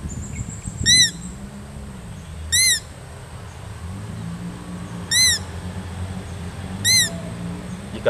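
Hand-held mouth-blown game call imitating a muntjac (barking deer). It gives four short, high calls spaced a second or two apart, each rising then falling in pitch.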